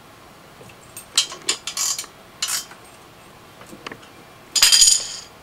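Light metallic clinks and taps from a wrench and a steel rear motorcycle stand being handled, then one louder, ringing metal clatter near the end.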